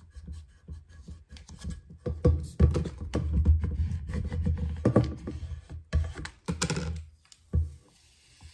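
Plastic vinyl squeegee rubbed in repeated strokes over transfer tape on a stainless tumbler, pressing the decal down. Scratchy rubbing with clicks and handling bumps, heaviest from about two to seven seconds in, then it goes quiet.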